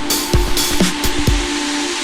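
Electronic dance background music with a steady kick-drum beat, about two beats a second, over a held synth tone.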